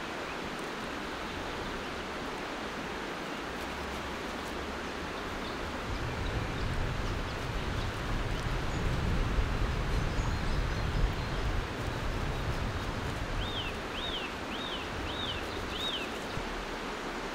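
River water rushing steadily, with a low rumble swelling up about six seconds in and fading a few seconds later. Near the end a bird gives five quick chirps, about two a second.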